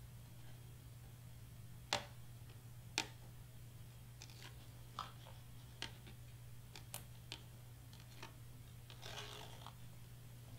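Release liner being peeled off foam tape on a cardstock letter: scattered faint clicks and crinkles, with a short crinkly rustle about nine seconds in, over a low steady hum.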